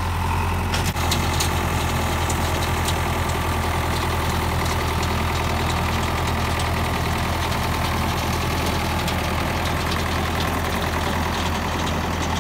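Tractor engine running steadily at a low, even pitch, with a short click about a second in.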